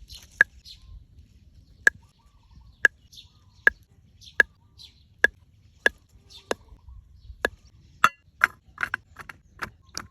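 A blade chopping with steady strokes, each a sharp hit with a short ring, about one a second. The strokes come faster near the end.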